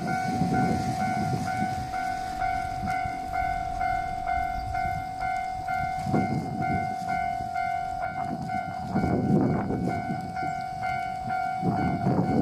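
Japanese level crossing warning bell starting up suddenly and ringing on in a quick, even rhythm over a steady tone, the signal that a train is approaching.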